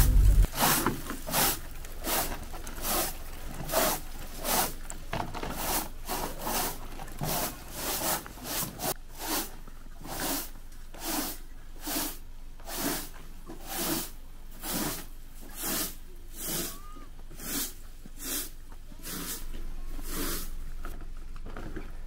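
Broom sweeping snow off a wooden deck in steady, rhythmic scratchy strokes, about three every two seconds.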